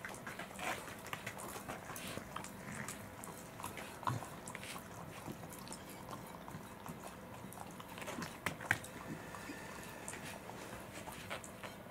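A Welsh corgi licking a plate clean of the last of its soy pulp: wet tongue smacks and lapping with many small clicks, and a sharper click about four seconds in and two more around eight and a half seconds.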